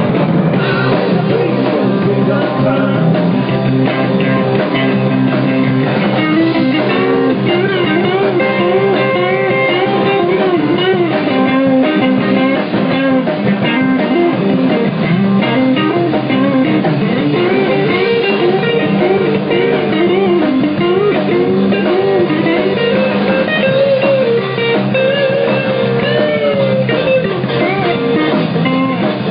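Live rock-and-roll band playing: electric guitars, bass guitar and drum kit, with a wavering melody line over steady chords from about a quarter of the way in.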